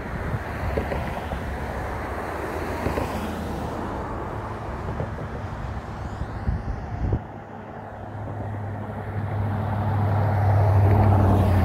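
Wind buffeting the microphone for the first several seconds, then a motor vehicle approaching with a steady engine hum that grows louder over the last few seconds and is loudest near the end.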